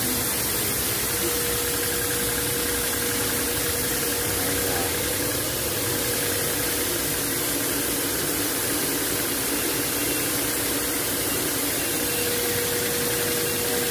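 Electric pressure washer running steadily: its motor and red high-pressure pump hum at a constant pitch under the hiss of water spraying from the wand.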